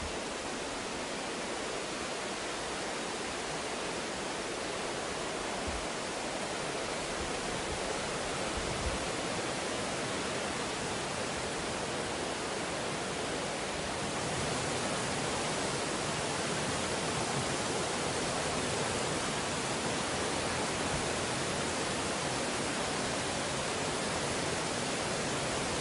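Artificial indoor rain from a rain-room installation, a steady, dense hiss of falling water that gets a little louder about halfway through.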